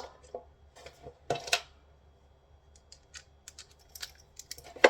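Scattered clicks and clunks of hand tools and metal parts being handled while dismantling a solar inverter, with louder knocks about a second and a half in and again near the end.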